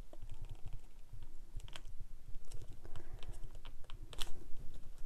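Scattered light taps and clicks of paper cardstock being handled and positioned by hand on a craft table.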